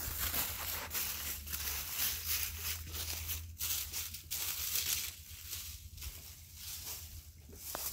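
Footsteps crunching and rustling through dry leaf litter, in a run of repeated bursts.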